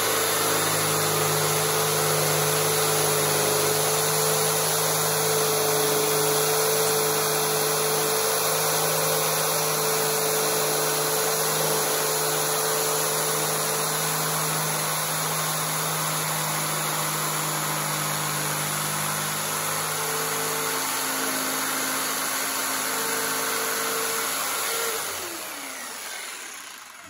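Corded jigsaw with its orbital action at maximum, running steadily as it cuts a curve through a wooden board. It is switched off near the end and its motor spins down.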